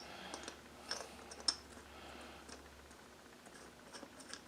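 Faint scattered clicks and ticks of a small-engine carburetor's float bowl and bowl nut being fitted and threaded on by hand, the sharpest click about a second and a half in.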